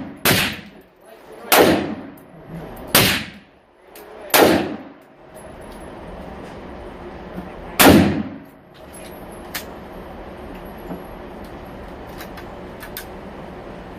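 Shots from a 10.5-inch AR-15 chambered in 7.62x39: four rounds about one and a half seconds apart, then a fifth about eight seconds in. After that comes a steady low background hiss with a few faint sharp ticks.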